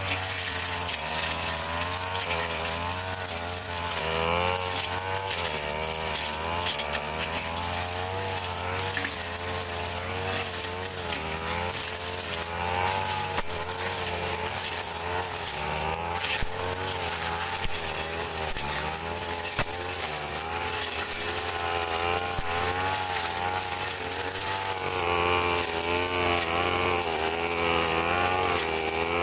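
Two-stroke brush cutter running steadily while cutting grass, its engine pitch wavering up and down as the blade meets the growth.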